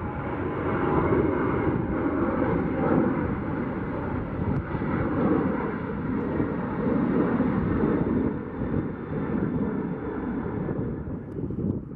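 Twin jet engines of a Boeing 737 airliner climbing out after takeoff: a steady rushing roar that thins out near the end as the plane pulls away.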